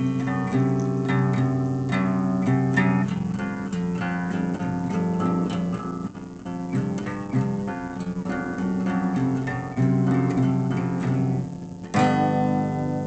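Music: a plucked string instrument, likely guitar, playing a run of picked notes, then one chord struck near the end that rings out and fades.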